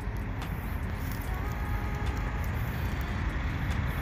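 Steady road traffic noise, a continuous low rumble of passing vehicles with no distinct events.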